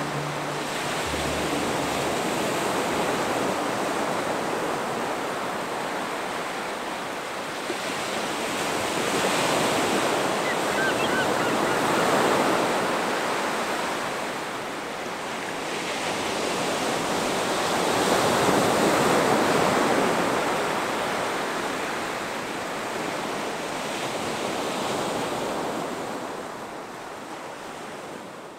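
Sea waves breaking on a beach: a steady rush of surf that swells and ebbs every few seconds, fading out near the end.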